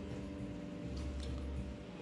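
Faint background music, with a few light clicks of plastic clip hangers knocking together as clothes on a rail are handled.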